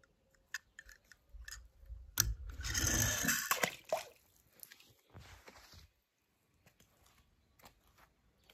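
A die-cast toy car splashing into a swimming pool about two seconds in, the water churning for about a second and a half, with a smaller splash a few seconds later. A few light clicks come before the splash.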